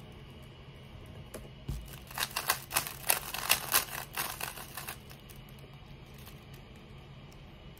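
Plastic 3x3 speedcube being turned fast by hand, a rapid run of sharp clicking and clacking for about three seconds, then quieter turning with scattered ticks. A single dull thump comes just before the clicking starts.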